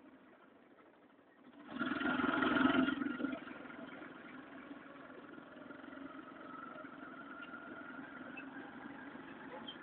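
A motor vehicle's engine running steadily, swelling louder for about a second and a half around two seconds in, then settling back.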